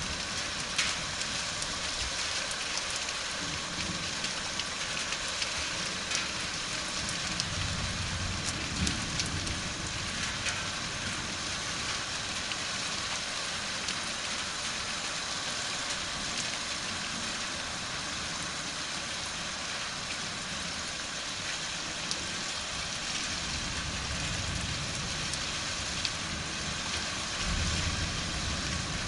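Steady rain falling, a dense even hiss with scattered drop ticks, during a thunderstorm. Low rumbles of distant thunder swell up a few times, the longest near the end.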